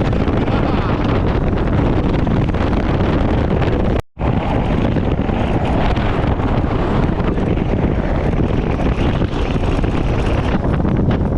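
Heavy wind buffeting the microphone aboard a boat running across rough water, a steady loud rush with no clear engine tone; the sound cuts out for a moment about four seconds in.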